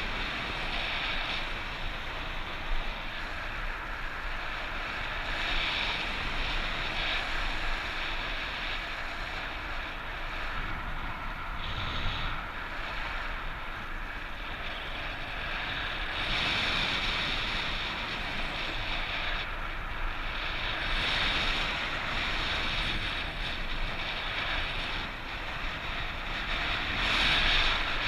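Wind buffeting the camera's microphone in strong airflow: a steady rushing hiss that swells and eases every few seconds.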